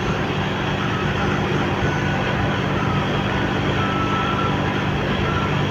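Motorcycle engine running steadily at cruising speed, with constant wind and road noise on the microphone.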